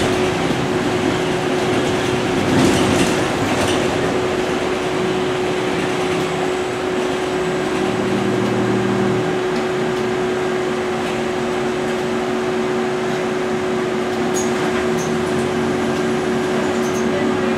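MAN Lions City city bus heard from inside the passenger cabin while driving: steady engine and drivetrain running with road noise and a constant whine. About eight seconds in the low engine note changes, briefly deeper, then settles into a steady higher hum.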